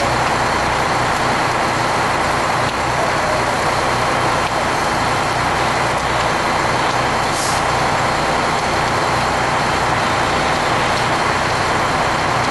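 Fire truck's diesel engine running steadily: a loud, even drone over a low, regular throb.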